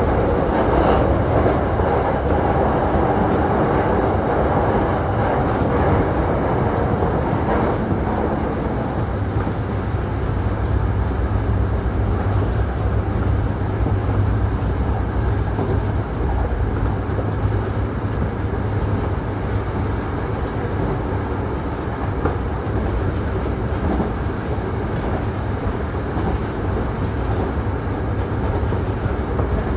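Hankyu electric commuter train running along the line, heard from inside the front car: a steady rumble of wheels on rail mixed with motor noise. A low hum comes in about nine seconds in and fades a few seconds later.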